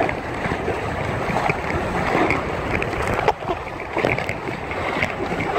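Water rushing and splashing along a Hobie Wave catamaran's hull under sail, with wind buffeting the microphone. Two sharp knocks come a little after the middle.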